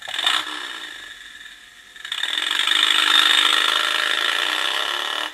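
Mechanical whirring and ratcheting from the base of a motorcycle snow globe's clockwork, starting with a short burst, louder and steady from about two seconds in, then cutting off abruptly.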